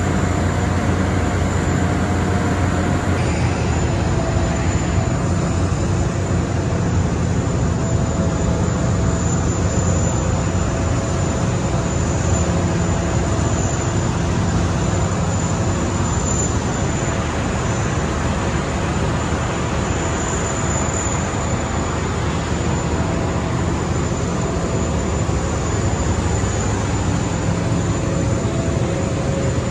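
Steady aircraft noise on an airfield apron: a continuous rush with a faint high whine held throughout.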